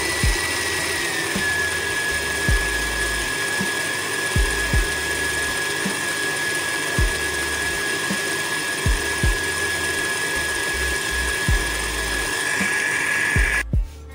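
Electric stand mixer running steadily while beating margarine in its steel bowl. Its high motor whine drops a little in pitch about a second in, irregular low knocks come through, and it cuts off suddenly near the end.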